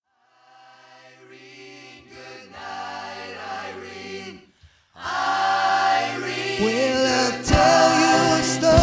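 Intro of a rock song. A swell of sustained, choir-like voices fades in and changes chord every second or so, then breaks off just after four seconds. About five seconds in the full band comes in much louder, with drum hits from near the middle of the second half.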